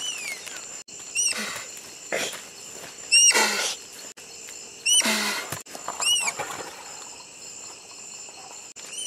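Tapir calling: about six short, high squeaks that each rise and fall in pitch, each with a breathy rush of air. The loudest come about three and five seconds in.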